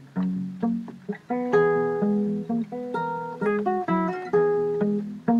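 Carbon-fibre McPherson acoustic guitar played fingerstyle: a plucked melody ringing over alternating bass notes.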